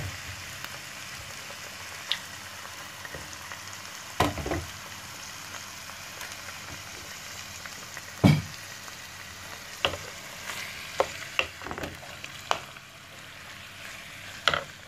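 Whole raw squid sizzling steadily in hot oil in a frying pan. A wooden spatula knocks against the pan a dozen or so times as it stirs, loudest about four and eight seconds in.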